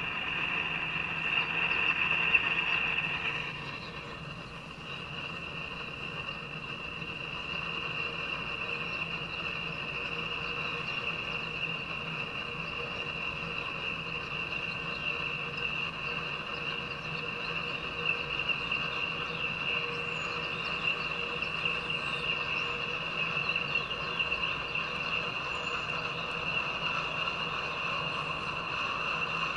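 Freight train of oil tank cars rolling past, played from a railcam stream through laptop speakers: a steady rolling noise with a constant high-pitched whine over it, a little louder for the first three seconds.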